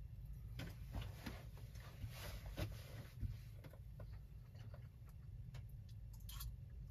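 Faint scattered clicks and light taps of a spoon and metal pot being handled, over a low steady hum.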